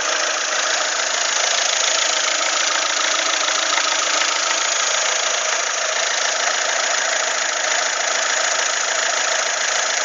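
Peugeot/Citroën 1.6 HDi four-cylinder common-rail turbodiesel idling steadily while it runs on Liqui Moly Diesel Spülung injector-system cleaner fed in from a bottle.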